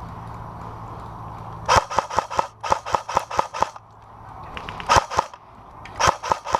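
Airsoft gun firing quick runs of sharp shots, about five or six a second. A run of about a dozen starts nearly two seconds in, then two short runs follow near the end.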